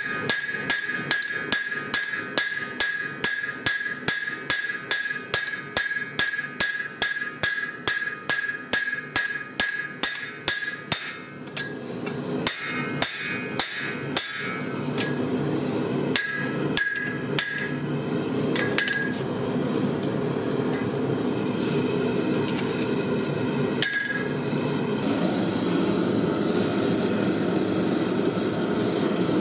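Hand-hammer blows on a red-hot lawnmower-blade cleaver over a steel anvil, about three a second, each with a bright ring from the anvil. After about eleven seconds the blows become scattered and stop. A steady rushing noise from the forge follows, growing louder near the end.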